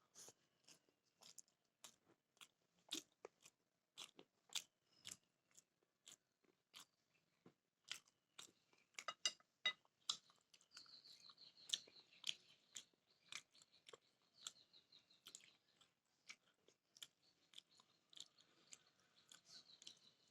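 A person chewing and eating: irregular close-up mouth clicks and soft crunches, a few every second. A faint thin high tone joins about halfway through.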